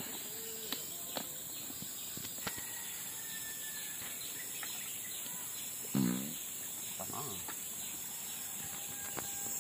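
Forest ambience: a steady high insect drone with faint bird whistles and a few sharp clicks. The loudest sound is one short pitched call about six seconds in, followed by a weaker one a second later.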